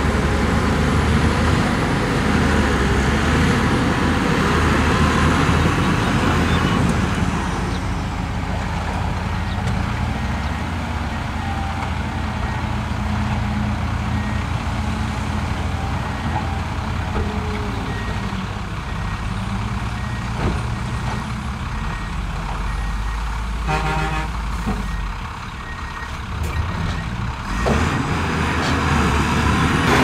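Heavy diesel earthmoving machinery running with a steady engine drone, louder for the first several seconds and then easing off. A faint, high beep repeats through the middle.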